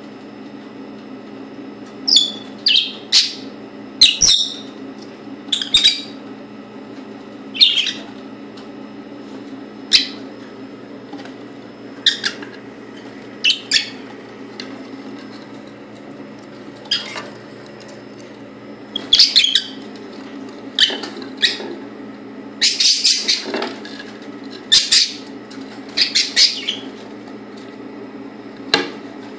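Pet parrot giving short, sharp chirps and squawks in irregular bursts, busier in the second half.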